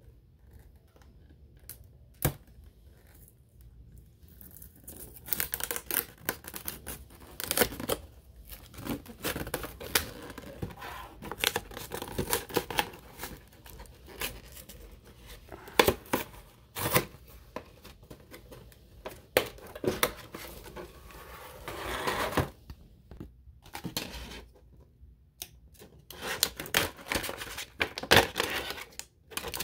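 Hands opening a toy blister pack: the clear plastic shell crinkles, snaps and tears as it is pried away from its cardboard backing card, in irregular bursts of crackling and sharp clicks. It is faint for the first few seconds, with one sharp click, then busy, with a short lull before the end.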